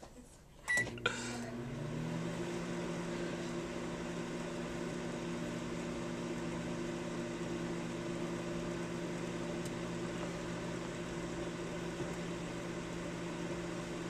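Microwave oven starting up with a short beep and a click about a second in, then running with a steady hum.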